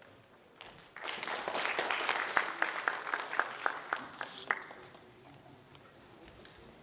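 Audience applause, starting about a second in and dying away after about four and a half seconds.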